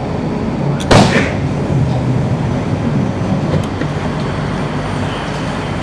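Interior of a stopped LRT car: a steady low hum from the car, broken about a second in by one sharp, loud noise as the doors begin to open.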